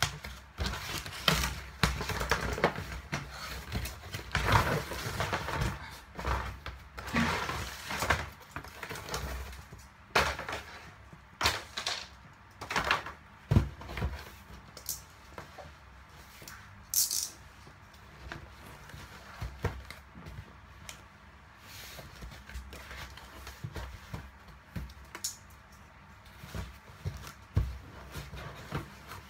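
Cardboard shipping carton being torn open and handled: dense ripping and rustling for the first ten seconds or so, then scattered scrapes and knocks as a cardboard box is slid about and set down.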